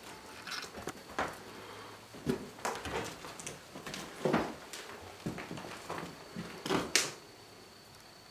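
Irregular footsteps and scuffs on a floor littered with debris and fallen plaster, with a few sharper knocks. A faint steady high tone comes in near the end.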